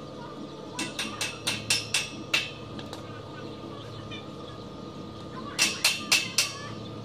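Stick (arc) welder's electrode striking short arcs on steel angle iron and round bars, tack-welding a window grille: a quick run of about seven short bursts starting about a second in, then four more near the end.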